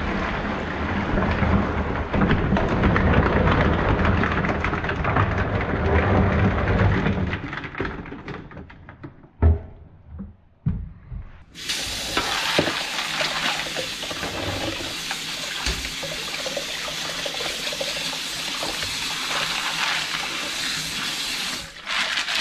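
Water poured from a tub through a metal mesh strainer into a sink, tailing off with a thump about nine seconds in. From about halfway, a kitchen tap runs steadily over cockles in the strainer as they are rinsed and turned by hand, with scattered clicks.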